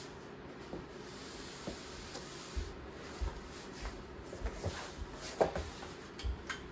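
Hunter Crown Canyon ceiling fan running on high, a faint steady rush of air with no motor hum or blade noise of its own. Scattered small clicks and short low thumps sound through it, mostly in the second half.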